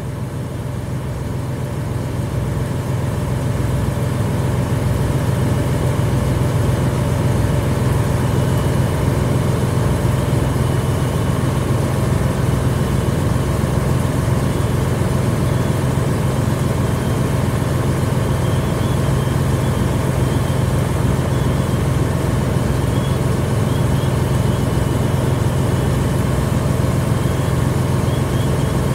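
Fire engine's diesel engine running steadily while pumping water into the hose lines, a low, even drone that builds over the first few seconds and then holds.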